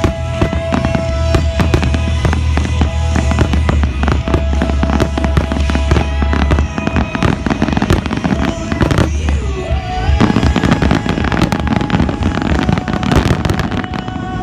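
A dense barrage of aerial firework shells bursting and crackling in rapid succession, with music playing along underneath.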